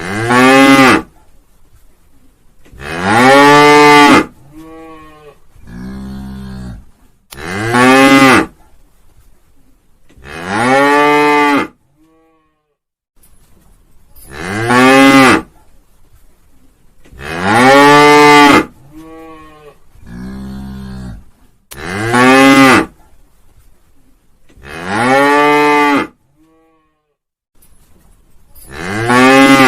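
A cow mooing again and again, a loud moo about every three seconds, each one rising and then falling in pitch. Twice a quieter, lower moo comes between them.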